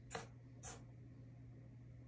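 Two brief scratches on a desk surface, the first the louder, over a low steady hum.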